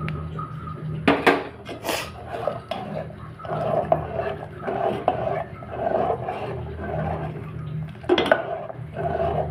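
A metal spoon scraping round an aluminium pot as it stirs a thick milk-and-vermicelli mixture, in a repeating stirring rhythm. There are sharp metal clinks about a second in and again near the end.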